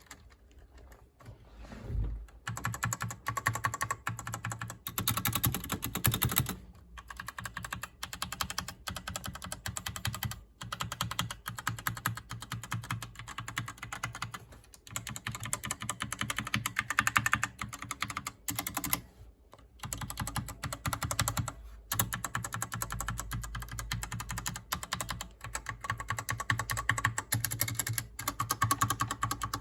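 Typing on a Hator Starfall mechanical keyboard with Outemu Red linear switches: fast runs of key clacks broken by a few short pauses.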